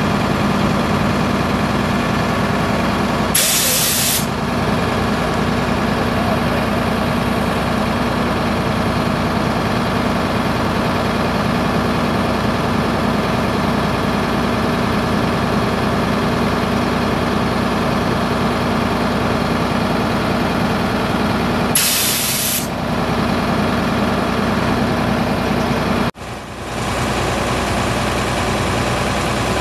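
The truck's 7.8 L inline-six diesel engine runs steadily, with two short hisses of compressed air released from its air system, one a few seconds in and one past the middle.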